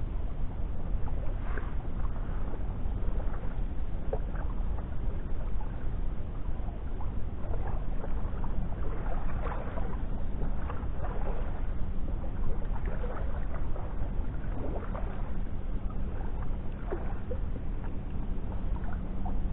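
Small waves lapping against a rocky shoreline: a steady low rumble with short splashes scattered through it.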